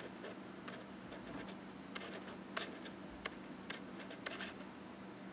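Irregular light clicks and taps, about a dozen, the sharpest about two and a half seconds in, over a steady low hum.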